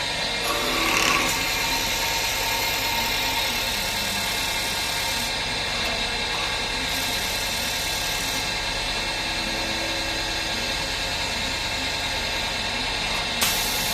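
CNC lathe running: a steady mechanical hum with several whining tones over a hiss, and a brief sharp hiss near the end.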